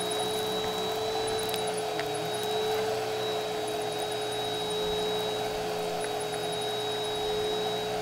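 Bissell Helix upright vacuum cleaner running steadily as it is pushed over carpet: a constant motor whine with a thin high whistle above it, and a few faint clicks.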